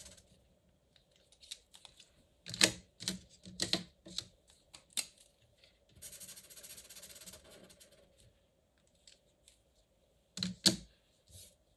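Plastic clicks and knocks of fibre-tip pens being capped, uncapped and swapped, loudest about two and a half seconds in and again near the end. About six seconds in, a soft scratching of a felt pen tip rubbing on paper for about two seconds as a swatch is coloured in.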